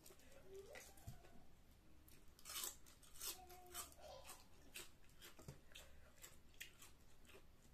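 A crisp cabbage leaf torn apart by hand and crunchy chewing: a quiet, irregular run of sharp crackles and snaps.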